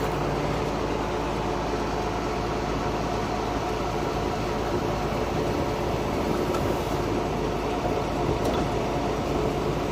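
John Deere 4440 tractor's diesel engine idling steadily, with the round baler running behind it as it ties twine around a finished bale.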